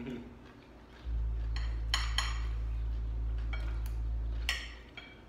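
Metal forks clinking on ceramic dinner plates while eating, a handful of sharp clinks with a brief ring. Under them a steady low hum starts about a second in and stops near the end.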